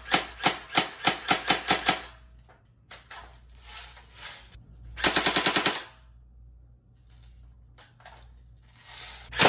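GameFace Battlemaster electric airsoft AK-47 firing full auto: a string of sharp shots about four a second that stops about two seconds in, then a short, faster burst around five seconds in, then near the end only a few faint clicks. The stops fit the gun jamming.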